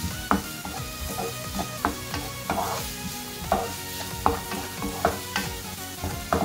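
Wooden spatula stirring chopped onion, garlic and ginger as they sizzle in hot oil in a non-stick frying pan, with a scraping stroke about twice a second. The onion is being sautéed until it softens.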